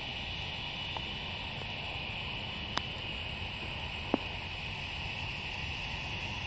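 Steady outdoor background noise with a constant high-pitched hum and a low rumble, broken by three short sharp clicks, the last one about four seconds in the loudest.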